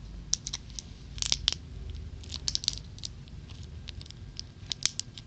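Hands struggling to open candy packaging: scattered sharp clicks and short scratches of fingers and nails working at the plastic.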